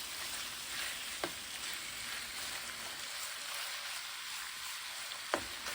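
Seasoned chicken thighs and gizzards frying in vegetable oil in a pan: a steady sizzle, with two short knocks of a utensil against the pan, about a second in and near the end.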